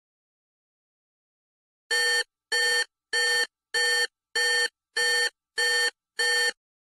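Electronic beep sound effect: eight identical short, steady beeps evenly spaced, a little under two a second, starting about two seconds in.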